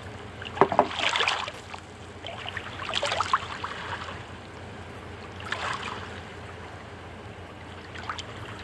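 A fork clinking and scraping in a pan of black beans being mashed, in a few short scattered bursts over a steady low hum.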